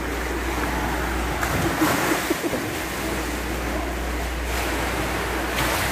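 Steady rushing noise with a low hum underneath, and faint snatches of distant voices about two seconds in.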